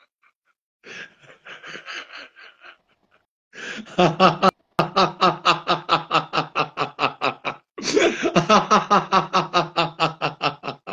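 A woman laughing hard: soft, breathy giggles at first, then from about four seconds in a loud, rapid ha-ha-ha of about five pulses a second.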